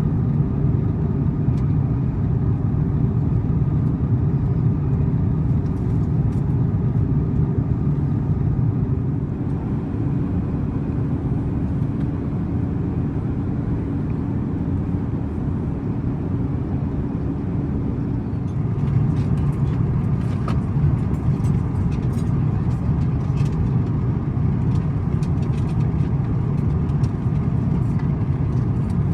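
Steady cabin rumble of an Airbus A350-900 in flight: engine and airflow noise heard from a passenger seat, even and unbroken, with a few faint ticks near the end.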